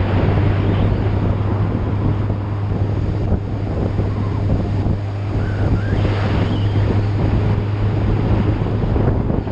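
Wind noise buffeting the microphone over a steady low engine hum from a vehicle on the move.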